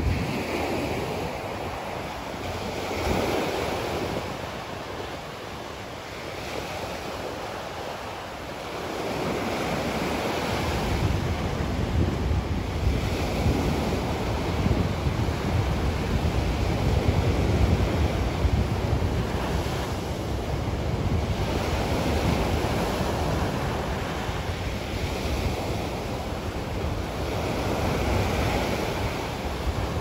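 Sea waves breaking and washing up a sandy, rocky shore, the surf swelling and ebbing every few seconds. A deeper rumble joins from about ten seconds in.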